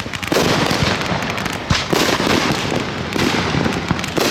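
Consumer fireworks going off: a dense run of rapid pops and crackling, with a few louder surges about every second or so.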